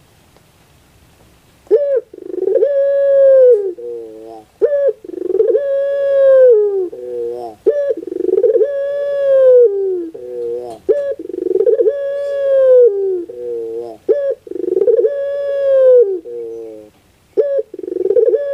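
Puter pelung (domestic ringneck dove) cooing in a repeated phrase about every three seconds, beginning after nearly two seconds of quiet. Each phrase is a short note, then a long held coo that drops at its end, then a few short falling notes.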